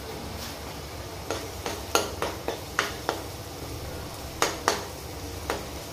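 Metal spoon stirring chopped onions frying in oil in a nonstick kadhai, clinking and scraping against the pan about a dozen times from about a second in, over a steady low sizzle.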